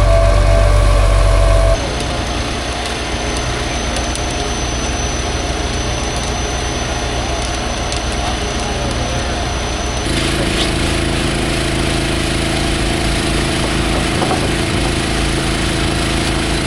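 Engines and machinery running steadily, with the sound changing abruptly about two seconds in and again about ten seconds in.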